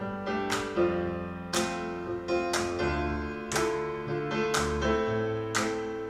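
Bowers & Wilkins 703 S3 floor-standing loudspeakers playing recorded music in a room: sharply struck chords about once a second, each ringing out and fading, with deep bass notes coming in twice in the second half.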